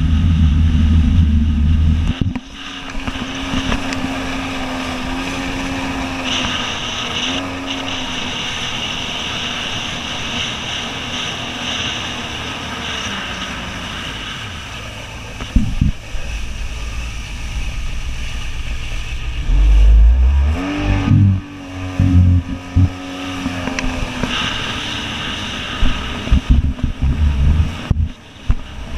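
Jet ski engine running under way, with wind and water noise rushing past. The engine is loudest at the start and eases off about two seconds in, then grows louder and uneven again about twenty seconds in.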